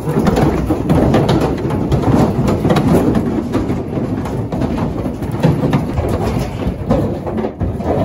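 Calves moving about inside a metal stock trailer: hooves knocking on the floor and the panels and gate rattling and banging, a dense, irregular clatter.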